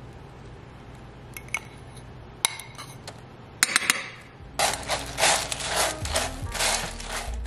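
A few light clinks of a glass bowl and utensil against a ceramic baking dish. Then, from about halfway, a run of crunchy rustling strokes as a silicone spatula stirs dry cereal, pretzels and candy into melted white chocolate.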